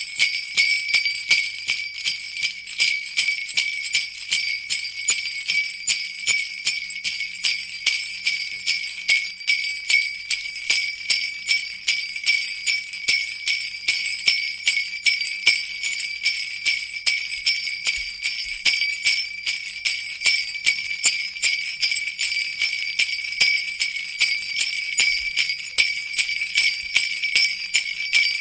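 Sleigh bells jingling continuously, shaken in a steady, even rhythm like a sleigh in motion.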